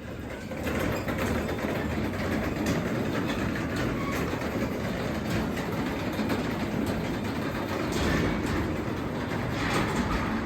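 Craftsman 3/4 horsepower belt-drive garage door opener running as it closes the garage door: a steady mechanical running noise with faint clicks through it.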